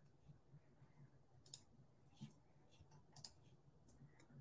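Near silence with a few faint, short clicks.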